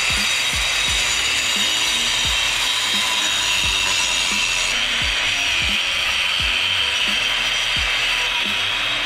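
Electric cutter running with a steady high whine and grinding hiss as its blade cuts a straight line through asphalt pavement. A thumping beat of background music runs underneath.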